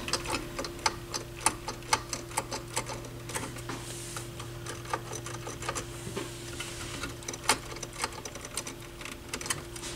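Small irregular clicks and taps of hands working among the circuit boards, wiring and metal chassis of an opened Pioneer SX-6000 stereo receiver, several a second, over a steady low hum.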